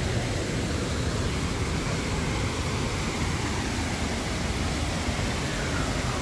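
Abrams Falls waterfall rushing steadily: an even, unbroken roar of falling water.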